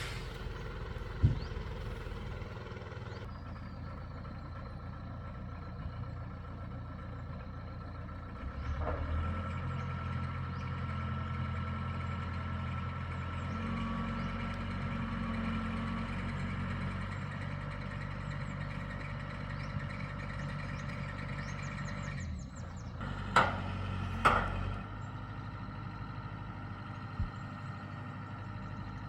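Heavy vehicle engine running steadily. About nine seconds in it picks up to a louder, higher note, then settles back down a little after twenty seconds. A few sharp knocks sound over it, two of them close together just after the drop.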